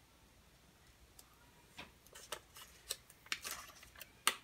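Fingers peeling and handling thin craft vinyl on a wooden toilet seat lid: quiet at first, then scattered crackles and short scratchy rustles from about two seconds in, the sharpest a little before the end.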